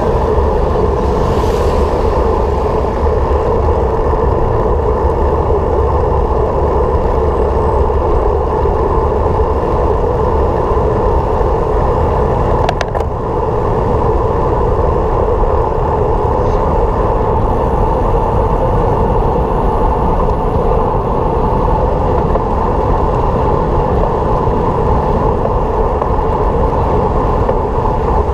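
Steady noise of a vehicle on the move: a constant low rumble with road and wind noise and no change in speed. A single sharp click comes about thirteen seconds in.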